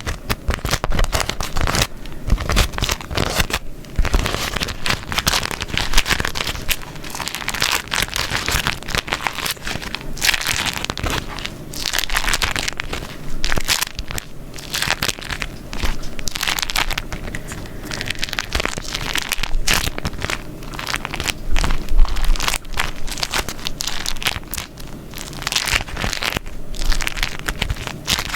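Beeswax food wrap being crumpled and folded, crackling and crinkling with a sticky peel as the waxed layers come apart, in irregular handfuls.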